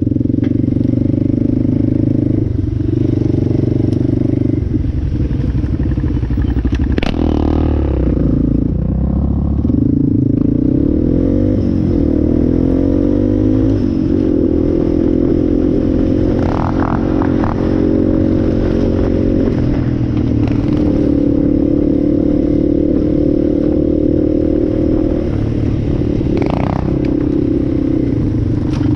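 ATV engine running along a bumpy trail, its pitch rising and falling with the throttle. A few short knocks and rattles come over it from the quad jolting over bumps.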